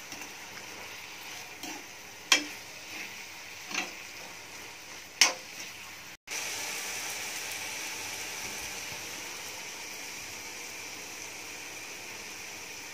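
Onion-tomato masala sizzling in oil in a metal kadhai while a spoon stirs it, with scraping and a few sharp clinks of the spoon against the pan. About six seconds in the sound cuts out briefly, then the steady sizzle of the frying goes on without stirring.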